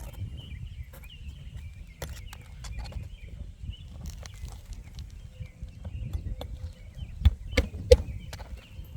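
Scattered clicks and scuffs of work on an asphalt shingle roof, with three sharp knocks close together near the end. Wind rumbles on the microphone and small birds chirp in the background.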